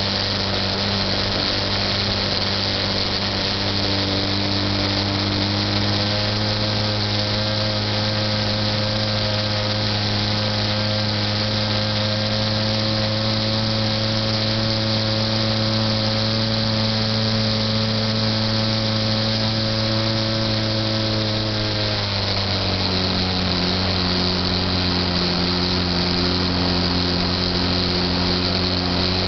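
Model airplane's motor and propeller running steadily, heard from a camera on board, a close whine with a steady pitch. About 22 seconds in the pitch drops and holds lower.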